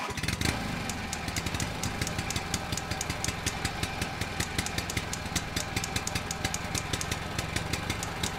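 An engine running steadily at idle with a fast, even clatter, starting abruptly.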